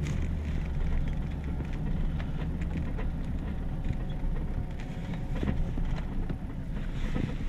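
Pickup truck rolling slowly along a dirt road, heard from inside the cab: a steady low engine rumble, with scattered small clicks and pops from the tyres on the road surface.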